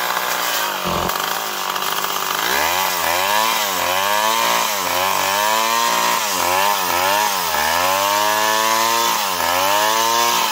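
Stihl two-stroke chainsaw running with the bar free of the wood. From a couple of seconds in, its throttle is blipped again and again, the engine rising and falling in pitch about twice a second.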